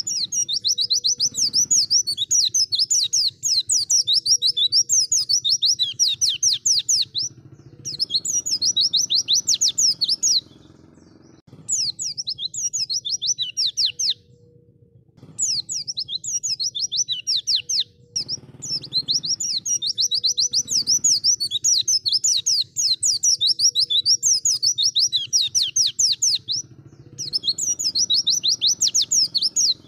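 White-eye (pleci) singing long, rapid twittering phrases of quick falling high notes, each phrase lasting several seconds with short pauses between them.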